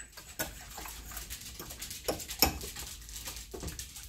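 A utensil stirring shredded chicken and cream of mushroom soup in a ceramic casserole dish: wet scraping with irregular knocks against the dish, the sharpest about two seconds in.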